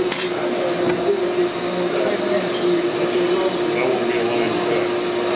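Steady mechanical drone with one constant hum running through it, with faint voices murmuring underneath.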